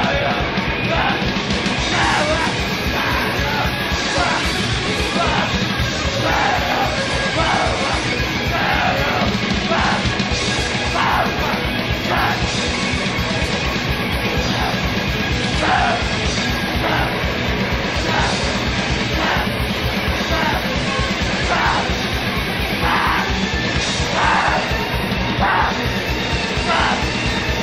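Loud, noise-laden hardcore punk: distorted guitars and bass, fast drumming and harsh yelled vocals, with no let-up.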